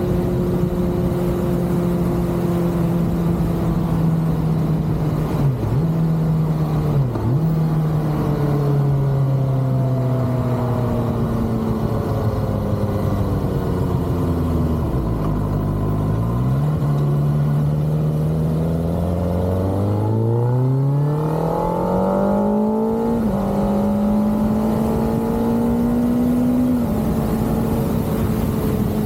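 Kawasaki ZX-6R's 636 cc inline-four engine running on the road: steady at first with two quick dips in revs, falling away as the bike slows about halfway through, then rising again under acceleration with gear changes, a step in the engine note about 23 seconds in and a drop near the end.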